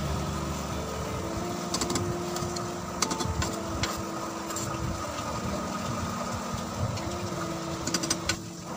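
A steady machine-like hum with a few light clinks, as half-boiled basmati rice is spooned over the chicken in the biryani pot.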